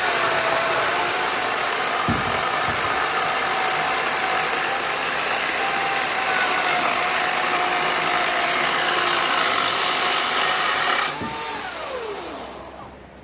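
Two-stroke chainsaw running at full throttle, cutting lengthwise through a wooden slab. About eleven seconds in the throttle is released and the engine's pitch falls away as it winds down.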